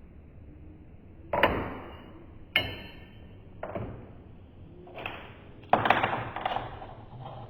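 A series of handling knocks, taps and clunks: a thud a little over a second in, a sharp click about two and a half seconds in, two lighter knocks, then a longer cluster of clattering near the end.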